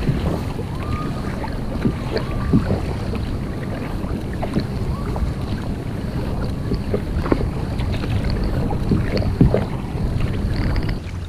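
A kayak paddle dipping and pulling through seawater, with splashes and drips, over a steady low rumble of wind on the microphone.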